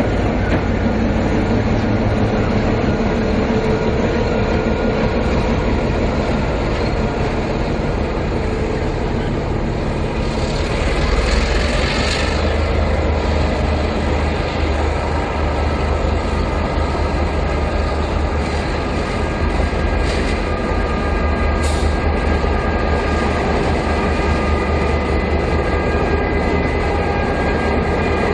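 QR National diesel-electric locomotives running light engine past at close range, their diesel engines running steadily with a low, continuous sound, and getting a little louder near the middle as they pass.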